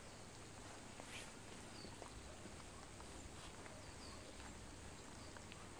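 Near silence: a faint steady background hiss with scattered soft ticks and a few faint high chirps.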